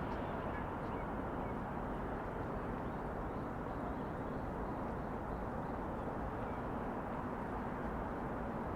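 Steady outdoor city hum of distant traffic, with a few faint short high sounds near the start.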